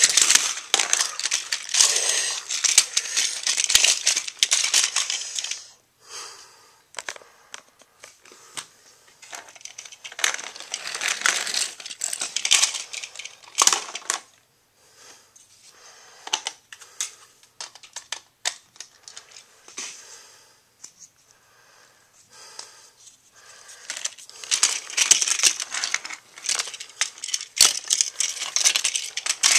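Plastic TOMY toy trains and trucks clattering and rattling on plastic track as they are pushed and tipped over by hand, in three bursts of rapid clicks and knocks with quieter stretches between.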